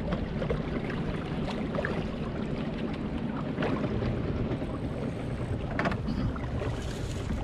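Wind rumbling on the microphone over water rushing along the hull of an Impulse 26 sailboat under way, with a few brief knocks.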